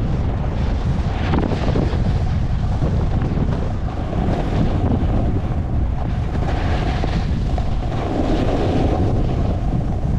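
Wind rushing and buffeting over the microphone of a camera carried by a skier moving fast downhill, with the hiss of skis on packed snow swelling a few times as the skier turns.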